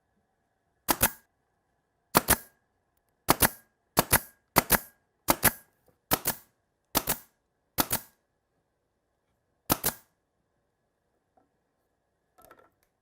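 Ten sharp double snaps at uneven intervals, each a quick pair of hard clicks, from a workshop tool being fired or struck during the build.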